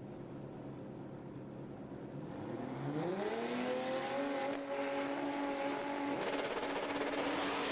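Drag racing cars launching and accelerating hard down the strip. The engine note sweeps up in pitch about two seconds in, then holds high and loud at full throttle.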